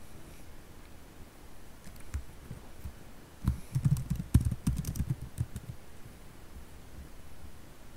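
Typing on a computer keyboard: a few single keystrokes about two seconds in, then a quick run of keystrokes near the middle as a short terminal command is typed and entered.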